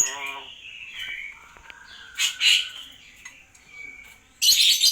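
Common hill myna (beo) giving harsh squawks: two short ones about two seconds in and a louder, longer one near the end, with soft whistled notes between.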